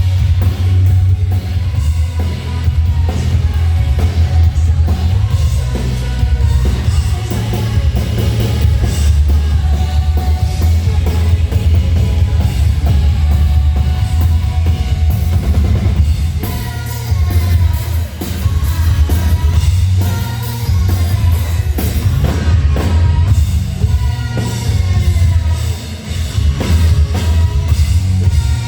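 Live rock band playing loud, the drum kit prominent over a heavy, steady bass, with some singing.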